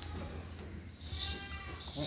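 A goat bleats once, about a second in, in a call lasting under a second.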